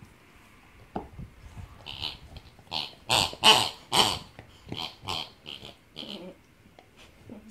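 Pink rubber pig squeaky toy squeaking over and over as a pit bull chews and presses it: a quick run of short squeaks, loudest in the middle, stopping about six seconds in.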